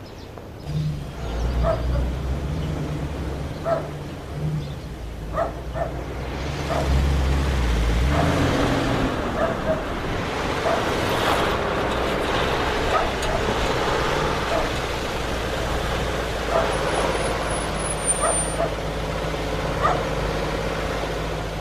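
A dog barking repeatedly at irregular intervals over a low steady rumble.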